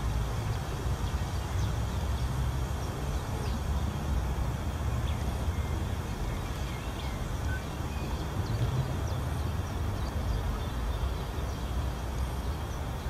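Outdoor park ambience: a steady low rumble throughout, with faint scattered bird chirps.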